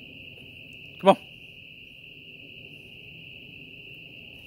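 A dog barks once, sharply, about a second in, over a steady high-pitched chorus of calling animals in the swamp.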